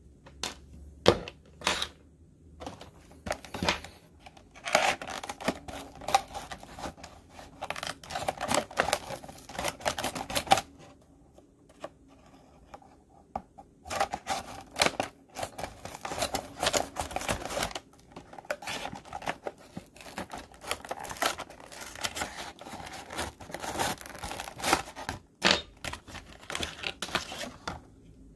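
Clear plastic blister packaging of a carded action figure being handled and pried open, crinkling and crackling in quick, irregular clicks. It pauses for a few seconds midway. A few separate small plastic clicks come near the start.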